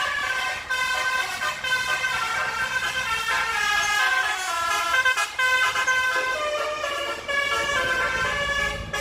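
A truck's 24-trumpet basuri air horn playing a tune, several horn notes sounding together and stepping up and down in pitch every fraction of a second. A low rumble comes in underneath near the end.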